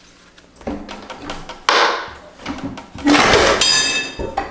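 Heavy metal clunks, then a loud scraping clatter with a metallic ring near the end, as a drive shaft is forced out of a Volvo transmission by force rather than by the proper method.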